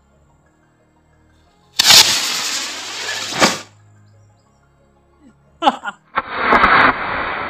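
Firework rocket lit on the ground: its motor catches and hisses loudly for about two seconds, ending in a sharp pop. After a couple of sharp clicks near the end, the same loud rocket hiss starts again.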